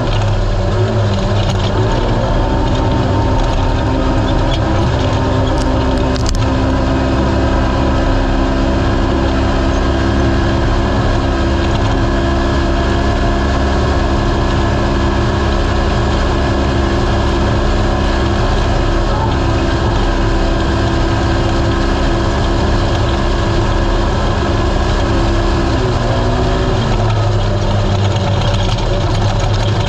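Race UTV's engine running hard at a nearly constant pitch over a heavy low rumble. The pitch climbs at the start and briefly drops and comes back up near the end, as the throttle is eased and reapplied.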